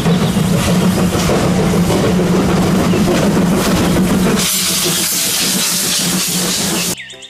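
Steam locomotive running past, hissing steam over a steady low hum. The hiss grows louder about four and a half seconds in, and the sound cuts off suddenly near the end.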